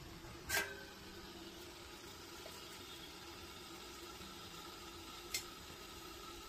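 Water in a stainless steel pot heating toward the boil: a steady low hiss with faint bubbling. A sharp click sounds about half a second in, and a fainter one comes near the end.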